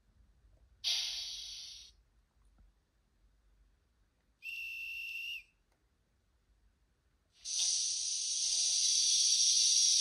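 Sound effects from the LokSound 5 decoder in an N-gauge TGV Sud-Est model, played through its small speaker: a brief hiss of released air about a second in, fading away, then a short steady whistle tone around the middle, then a longer, louder air hiss beginning near the end.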